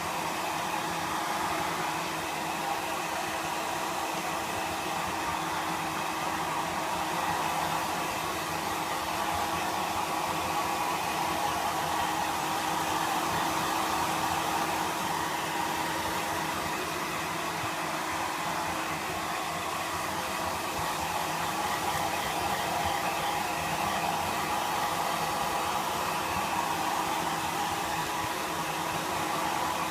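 Hair dryer blowing steadily with a constant hum under the rush of air. The rush swells and eases slightly but never stops.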